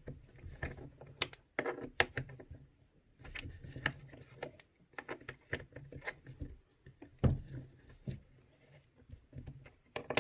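Irregular small clicks, taps and scrapes of a tool and metal parts being handled as the screws holding an airsoft sniper rifle's hop-up are loosened by hand.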